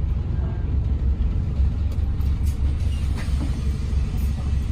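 Inside a Volvo B5TL / Wright Gemini 3 double-decker bus: a steady low rumble of the engine and running gear, with faint rattles and ticks from the cabin.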